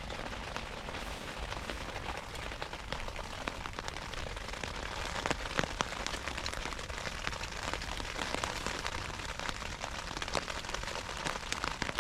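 Steady rain falling, with many individual raindrops striking close by in quick, uneven succession and a few sharper hits standing out.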